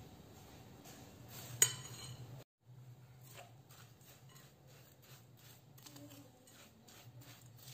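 A sharp clink about a second and a half in, then, after a brief cut, a metal spoon stirring buttered cookie crumbs in a glass bowl with a quick run of soft scrapes and light taps against the glass. A low steady hum runs underneath.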